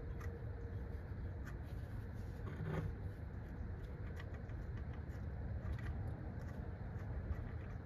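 Light, irregular metal clicks and clinks of a socket wrench working a bolt loose on an engine, over a steady low background rumble.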